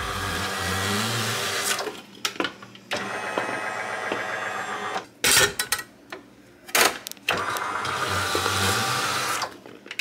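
Potatoes being forced through the grid blade of a stainless-steel lever french fry cutter: three long pushes of about two seconds each, with sharp metal clacks of the plunger and frame between them.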